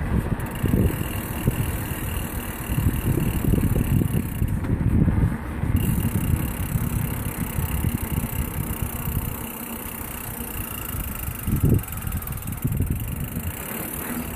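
Riding noise from a Kona Big Honzo steel mountain bike on its 27.5-plus tyres: wind buffeting the camera microphone in uneven gusts, over the rolling bike.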